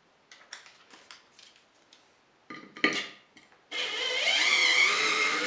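A few light clicks and knocks of parts being handled, then, near the end, a small handheld electric tool starts suddenly and runs steadily with a motor whine that rises briefly as it gets going.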